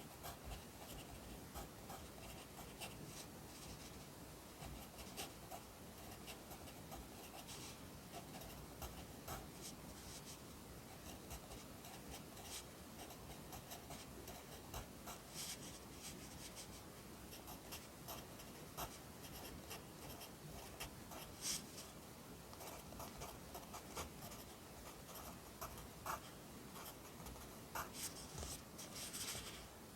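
Pencil writing Korean characters by hand on paper: a continuous run of short, soft scratching strokes, with an occasional sharper tap as the lead touches down.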